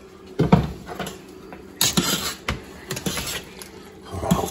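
A kitchen utensil knocking and scraping against a stainless steel pot as spaghetti is tossed with a creamy carbonara sauce: a heavy knock about half a second in, a bright scraping clatter around two seconds, then lighter clicks and knocks.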